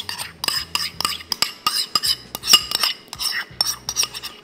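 Ceramic bowls clinking and scraping in quick, repeated clicks as mayonnaise is emptied from a small bowl into a large ceramic mixing bowl.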